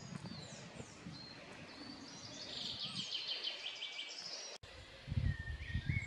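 A songbird singing a run of quick chirps and rapid trills, which breaks off abruptly about four and a half seconds in. Low irregular thumps on the microphone follow, with a few fainter whistled bird notes.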